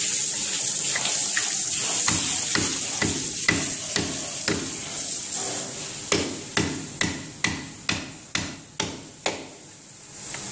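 Steel hand tool knocking against concrete inside the ring cut by a core drill, working the drilled concrete core loose. Sharp knocks come about two a second and grow louder about six seconds in.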